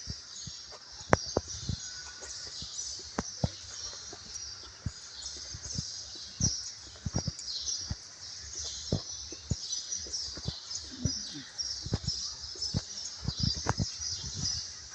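A dense, continuous chorus of high chirping calls from wild animals, mixed with frequent short, irregular knocks and clicks.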